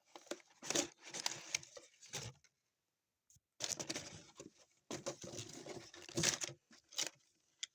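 Pedal packaging being handled: rustling and scraping of the box and wrapping, with sharp clicks and taps, in several bursts broken by a short pause about two and a half seconds in.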